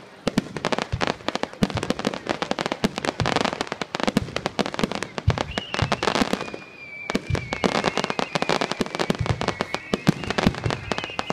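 Star mine fireworks barrage: a dense, continuous run of crackling bursts and shell bangs, many a second, with a brief lull just past the middle. A thin, steady high tone runs through the second half.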